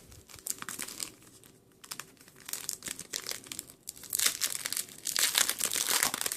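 Foil wrapper of a Yu-Gi-Oh! booster pack crinkling and tearing as it is opened by hand, with the loudest crackling in the last couple of seconds.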